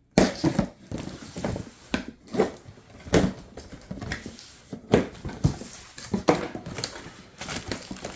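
Dogs barking at intervals, with the rustle and knock of a cardboard box being opened.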